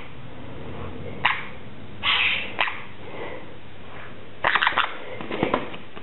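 Crimson-bellied conure clambering on a metal wire cage: scattered sharp clicks and rattles of its beak and claws on the bars, with a short harsh burst about two seconds in and a quick run of clicks near the end.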